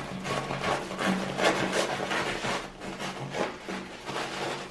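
A knife sawing back and forth through the crisp, charred crust of a freshly baked panuozzo on a wooden cutting board, in repeated rasping strokes.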